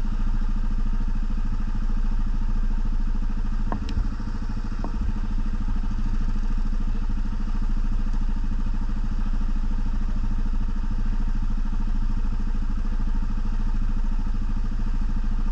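ATV engine running steadily at an even speed, with a couple of short knocks about four seconds in.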